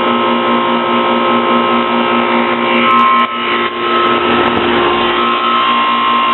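Heat pump outdoor unit running shortly after start-up: compressor and fan giving a loud, steady hum with several fixed tones, at its loudest stage before the compressor quiets down. About halfway through, a higher whine grows stronger.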